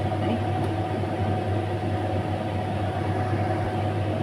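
A steady low mechanical hum, even in level throughout, with a faint higher steady tone over it.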